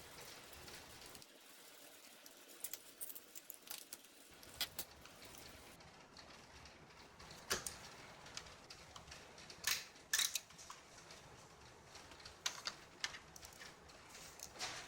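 Scattered light clicks and taps of small hard plastic and metal computer parts being handled, irregular and sharp, the loudest about seven and ten seconds in, over faint background hiss.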